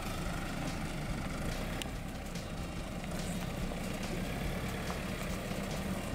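Jeep Wrangler Rubicon's engine running low and steady as it crawls away at walking pace over a rocky dirt trail, with a few small crunches of the tyres on stones.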